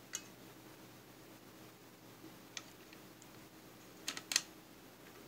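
A few faint clicks of the Xbox 360 hard drive case as its cover is pressed over the tabs, the loudest a quick cluster of two or three clicks about four seconds in; the cover has not yet snapped into place.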